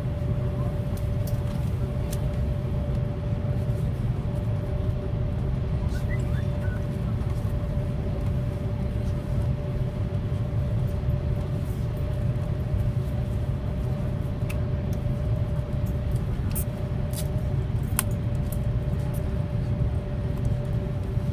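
Steady low rumble of a high-speed train running at speed, heard from inside the passenger car, with a constant hum over it and a few faint clicks.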